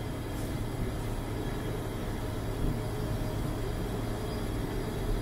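Steady background drone of a commercial kitchen, a rushing noise with a low hum under it, as from ventilation and gas burners.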